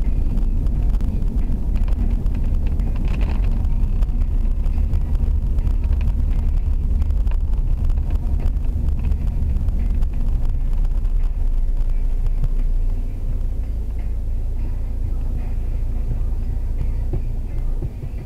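Steady low rumble of a car driving on a wet expressway, heard from inside the cabin; it eases a little about two-thirds of the way through as the car slows in traffic.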